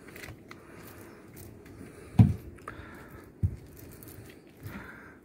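Paint roller rolling wet gelcoat over a plywood boat deck, a soft squishing, scraping sound. Two dull low thumps come about two seconds and three and a half seconds in.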